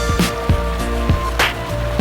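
Background music with a steady beat: kick drum about twice a second, a sharper snare-like hit, held synth notes and a heavy bass line.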